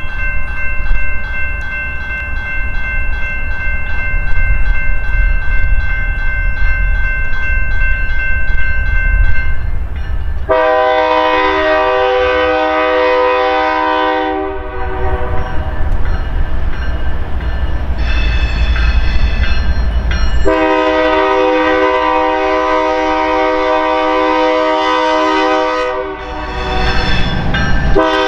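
Air horn of an approaching BNSF diesel freight locomotive sounding its grade-crossing signal: a long chord-like blast about a third of the way in, a shorter one, a long blast of about five seconds, and another starting near the end. Before the horn, a warning bell rings steadily, with a low rumble of the train and wind underneath.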